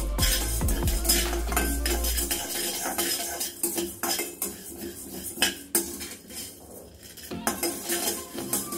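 Steel turner scraping and clinking against a stainless steel kadai as dry lentils and coriander seeds are stirred and tossed, the hard grains rattling over the metal; irregular strokes, busier in the first half. This is the dry-roasting of chana dal and urad dal on medium flame.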